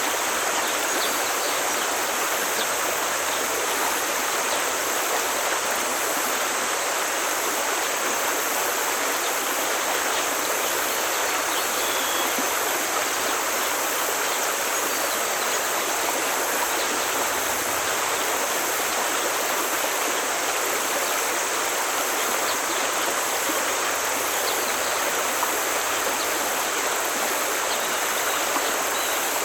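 Forest stream flowing, a steady, unbroken sound of running water.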